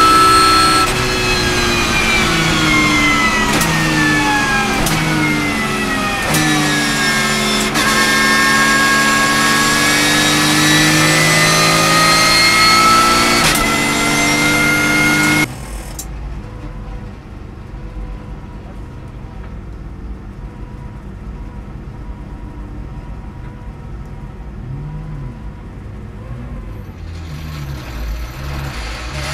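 Porsche race car's engine heard from inside the cabin, running at part throttle: its pitch sinks over the first several seconds as the car slows, then climbs again. About halfway through it cuts abruptly to a much quieter, low idle while the car sits stopped in first gear.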